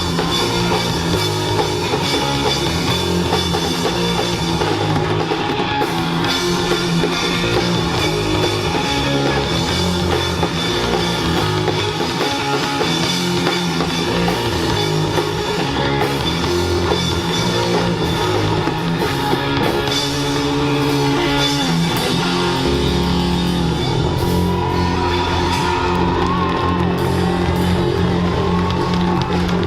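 Live rock band playing: electric guitar, bass and drum kit, loud and continuous, with the bass changing notes every second or so.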